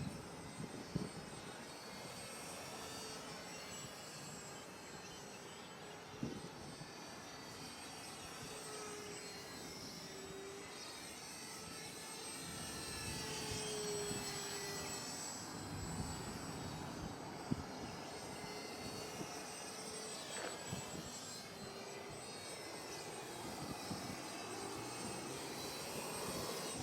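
Small electric RC 3D airplane, an E-flite Inverza 280, flying: its motor and propeller buzz faintly, the pitch wavering up and down as the throttle changes, with a few short knocks.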